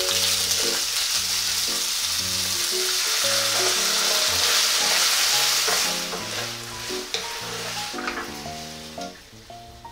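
Cut sausages, bell peppers and onion sizzling as they stir-fry in a nonstick pan, pushed around with a wooden spoon. The sizzle is loud at first and dies down over the last few seconds, with a few light spoon taps.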